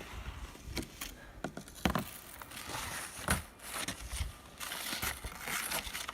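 Irregular crunching and scraping in packed snow, with sharp knocks about 2 and 3.3 seconds in.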